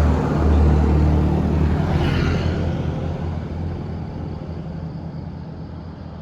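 Bus passing with a low engine drone that fades steadily over the last few seconds as it moves away.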